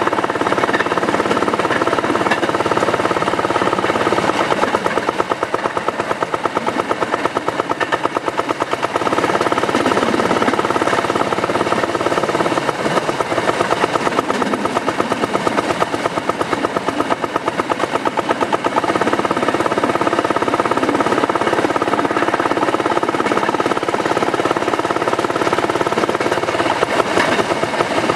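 Rail section car (speeder) engine running with a rapid, even firing beat as the car travels along the track.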